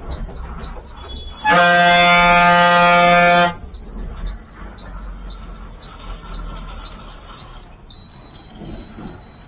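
A vehicle horn gives one steady blast of about two seconds, loud in the bus cabin, over the low rumble of the moving bus. A high beep repeats about twice a second and runs into one continuous tone near the end.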